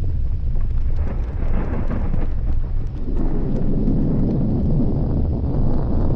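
Volcanic eruption rumbling: a steady low roar that swells twice, about a second in and again from about three seconds in, with faint crackles scattered through it.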